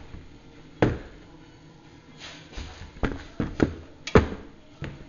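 A handful of sharp knocks and clunks at uneven intervals, the loudest a little past four seconds in, with no engine running.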